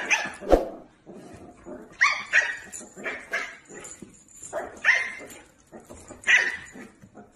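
A dog barking and yipping in short calls that come in clusters of two or three, with a sharp knock about half a second in.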